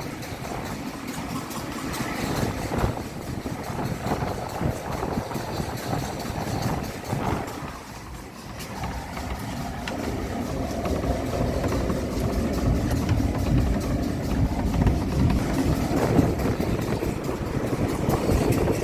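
Train running, a steady rumble and rattle that grows louder about ten seconds in.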